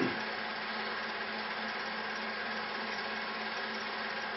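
Steady machine-like running noise: an even hiss with a constant low hum that does not change.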